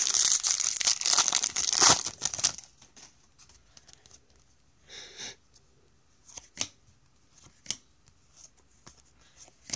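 Foil baseball card pack wrapper ripped open: a loud crinkling tear over the first two and a half seconds. A shorter rustle of the wrapper follows about five seconds in, then a few light clicks as the cards are handled.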